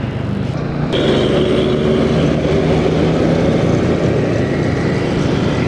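Motorcycle engine running steadily while riding, with wind and road-traffic noise; the sound turns abruptly louder and fuller about a second in.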